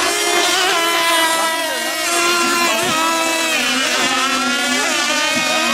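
Several fuel-powered radio-controlled racing boats running flat out together, their small engines making a high buzzing whine. The pitch of each engine rises and dips as the boats race past and turn.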